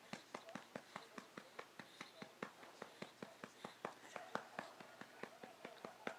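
A hand patting a baby's back to bring up a burp: quiet, even pats, about four to five a second, with faint wavering vocal sounds now and then.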